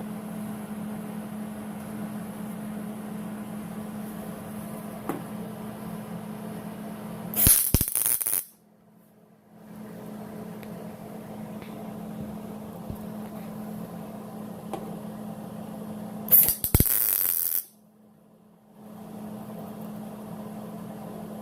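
Two short welding tacks on sheet-metal body panel: two loud crackling bursts of the welding arc, each about a second long and several seconds apart, over a steady low hum.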